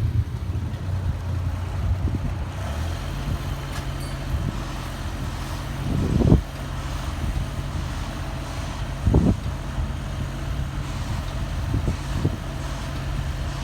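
A motor vehicle engine running steadily at a low idle hum, with two short louder noises, one about six seconds in that swells and stops abruptly, and another about nine seconds in.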